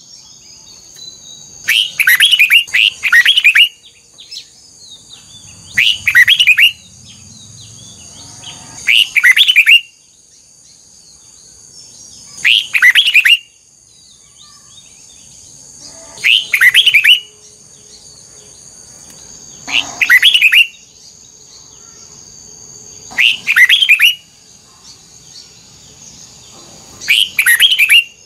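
Red-whiskered bulbul singing loud, short whistled phrases about every three to four seconds, about eight in all. A faint steady high-pitched tone runs underneath.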